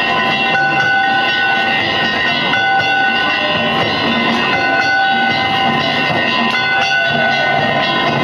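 Dense festival din with a clear high steady tone that sounds on and off, each time held for about a second.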